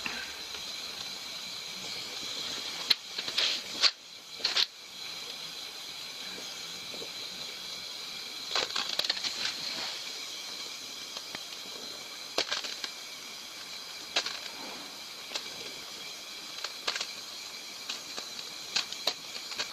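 Welding torch hissing steadily as a steel tube is welded onto a bicycle frame, with short sharp clicks here and there.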